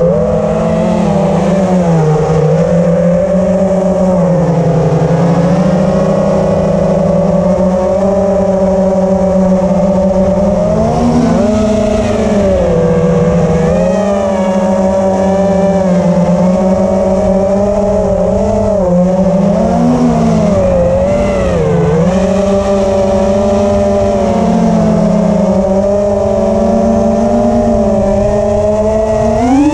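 FPV quadcopter's brushless motors whining steadily as it flies, the pitch rising and dipping with the throttle, with a sharp climb in pitch at the very end as the throttle is punched.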